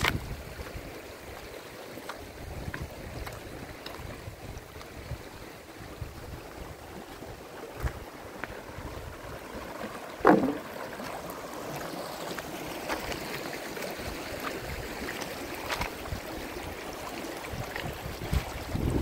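Shallow stream running over gravel and stones, with wind rumbling on the microphone. About ten seconds in there is one short, loud sound that falls sharply in pitch.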